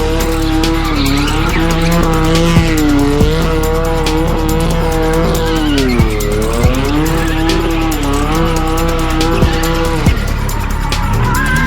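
A car's engine held at high revs during a burnout, its pitch dipping and climbing back several times with the deepest drop about halfway through, over squealing tyres. Music with a beat plays underneath.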